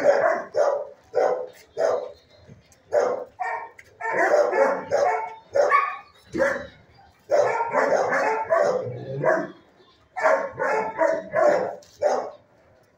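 Shelter dogs barking in bursts of quick, overlapping barks, with short lulls between the bursts.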